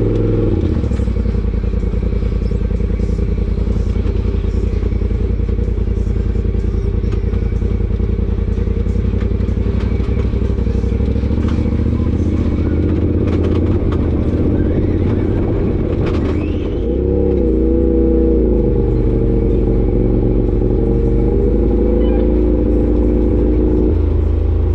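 Side-by-side UTV engine running steadily while driving a dirt trail, with scattered rattles and knocks from the machine. About two thirds of the way in the engine note dips briefly, then wavers up and down.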